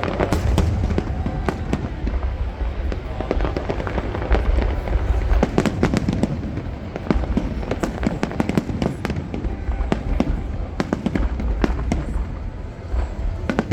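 Aerial fireworks going off in rapid succession: many sharp bangs and crackles over continuous deep booming.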